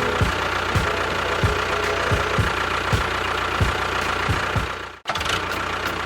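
An engine-like motor running steadily, with repeated knocks every half second or so. It cuts out for an instant about five seconds in, then carries on.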